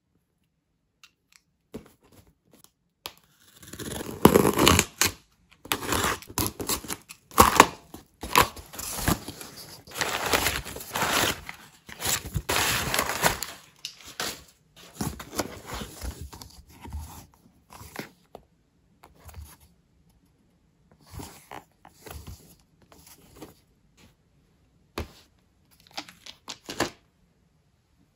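Camera packaging being opened by hand: repeated bursts of tearing and crinkling plastic or paper, with small scrapes and clicks. Dense about four to fourteen seconds in, then sparser.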